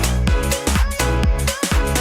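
Electronic dance music with a steady, punchy kick-drum beat.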